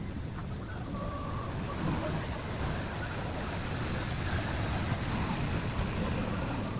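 Steady low background rumble with a faint hiss above it.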